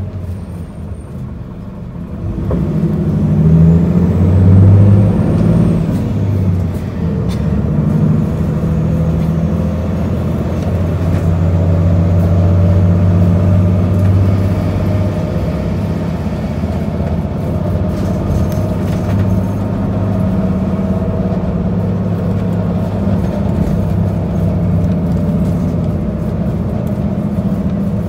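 Isuzu Erga city bus's diesel engine and drivetrain heard from inside the passenger cabin. About two seconds in the bus accelerates, the engine note rising and getting louder, then it runs steadily at road speed with tyre and road noise.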